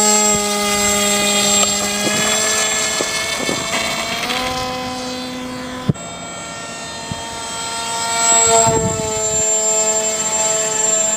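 Brushless electric motor and propeller of a homemade RC plane whining in flight, a steady high hum with many overtones. The pitch steps up about four seconds in and shifts down again later, with a sharp click near the middle.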